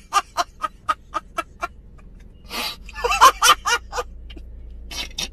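A man laughing hard: a quick run of short staccato laughs, about five a second, then a louder, higher, wavering stretch of laughter a few seconds in, and a few more short laughs near the end.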